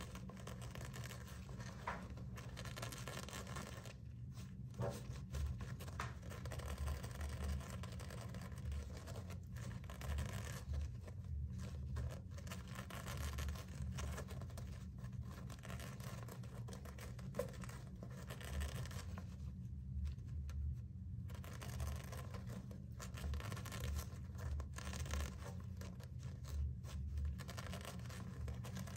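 Hamster scratching and rustling as it paws and burrows into soft woven fabric. The scratching comes in irregular spells with brief pauses.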